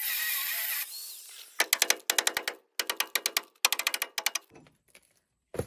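Angle grinder cutting a steel bracket on a truck frame, stopping within the first second. Then a hammer strikes the steel bracket in three quick runs of rapid, loud metallic blows, with a single knock near the end.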